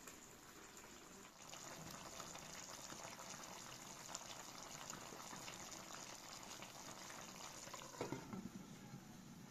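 A pot of chicken and carrot stew simmering on a portable gas burner, a steady hiss. About eight seconds in, a glass pot lid clanks as it is set on the pot.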